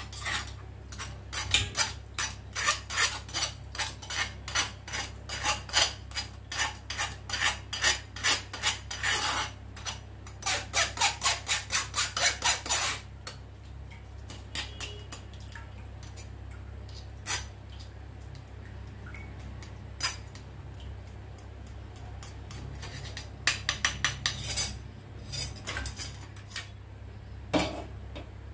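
A metal spoon scraping and clinking against a stainless-steel mesh strainer, pressing the whole spices and solids to strain chicken soup into a steel pot. The clinks come thick and fast through the first half, with a quick even run of strokes a little before the middle, then thin out to scattered taps, with a short cluster later on.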